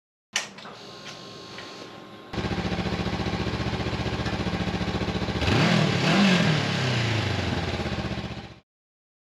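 Two-stroke 50 cc single-cylinder engine of a Beta RR 50 dirt bike idling with a fast, steady pulse, then revved in a few quick rising-and-falling blips a little past halfway. The sound cuts off suddenly near the end.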